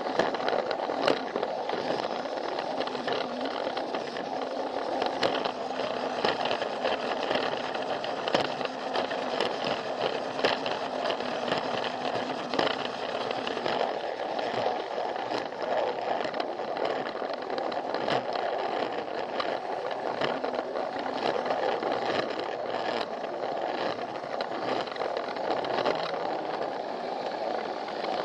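Plarail battery-powered toy train running on plastic track: a steady motor whir and rattle, with frequent clicks as the wheels pass over the track joints.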